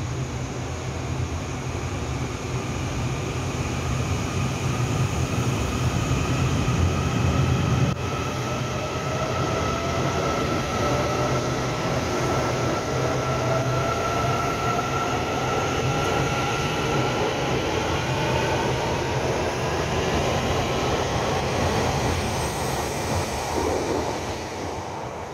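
Taiwan Railway EMU800-series electric multiple unit pulling out of an underground station. Its traction motors give several rising whines as it gathers speed past the platform, over the rumble of the running train, and the sound falls away near the end as it leaves.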